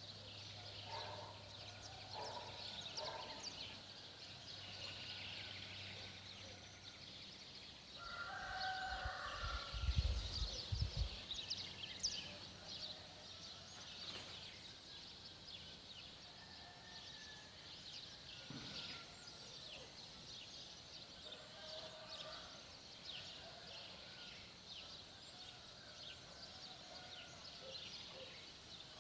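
Birds calling: many quick, high chirps run on continuously, with lower calls from larger birds coming and going. A few low thumps about ten seconds in are the loudest sound.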